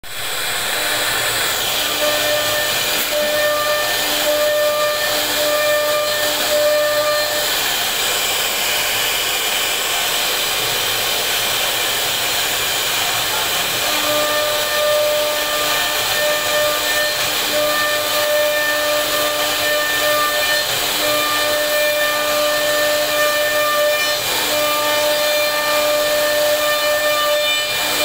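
CNC router spindle running at high speed while its bit carves a relief pattern into a wooden panel: a steady hiss of cutting under a high, fixed-pitch whine that comes and goes in stretches.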